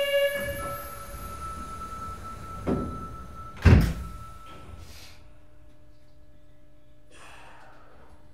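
Sapporo subway Tozai Line 8000-series train's sliding doors closing at a station stop: a steady high warning tone, then two thunks as the doors shut, the second the louder. Afterwards the standing train's equipment hums faintly and steadily.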